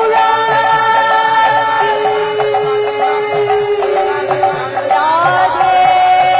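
Devotional kirtan song: a woman's voice holding long notes, sliding upward about five seconds in, over a steady drum rhythm.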